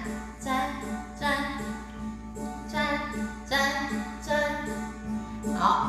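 Children's song music with a woman singing over a steady backing.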